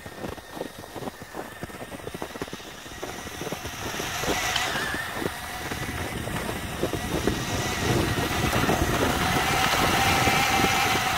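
Battery-powered radio-controlled snowmobile running through snow: a small electric motor whining with a rattle of clicks from its tracks, growing louder as it comes closer.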